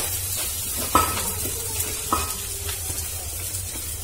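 Chopped greens dropped into hot oil and popped mustard seeds in a steel cheenachatti (kadai), sizzling steadily. A utensil knocks against the pan twice, once about a second in and again about two seconds in, each with a brief metallic ring.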